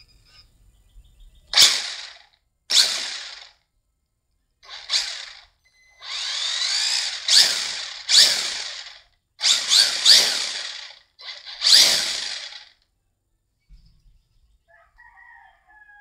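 Electric motor and drivetrain of a Wltoy A979B RC buggy revved in about seven sharp throttle bursts, the wheels spinning freely off the ground, each burst winding down after the throttle is released.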